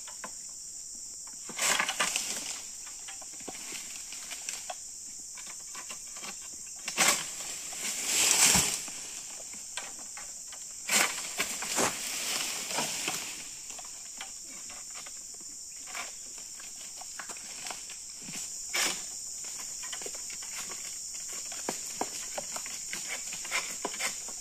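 Long-pole harvesting sickle cutting at an oil palm's crown: a series of rustling scrapes, cracks and thuds, loudest about eight seconds in, over a steady high-pitched insect drone.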